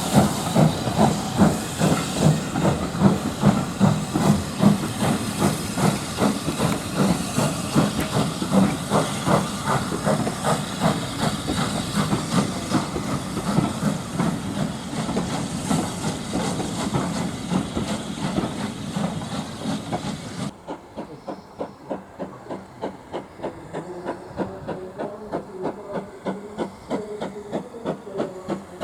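Steam locomotive working hard, its exhaust beating in a fast, even rhythm over loud hissing steam. About two-thirds of the way through, the hiss stops abruptly and the beats carry on more quietly.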